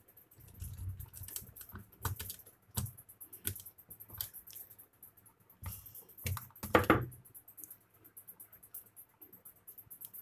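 Irregular small clicks and taps from hands working on a plastic switch board: wire ends being handled and fitted into the terminals, and a screwdriver working the terminal screws. A louder scrape comes about two-thirds of the way through.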